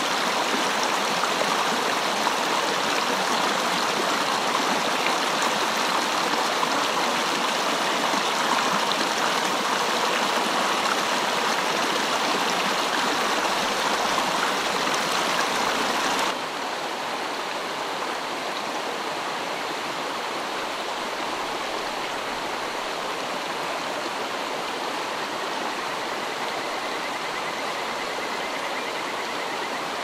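Mountain stream water running over rocks and a small cascade in a steady rush. About halfway through it drops suddenly to a softer, thinner babble of shallow water flowing among stones.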